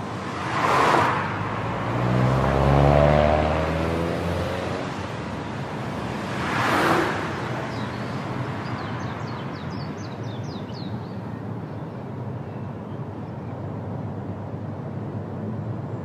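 Road traffic heard from a car: steady tyre and road noise, with vehicles whooshing past about one second and seven seconds in. The loudest part is a passing vehicle's engine between two and four seconds, its pitch bending as it goes by.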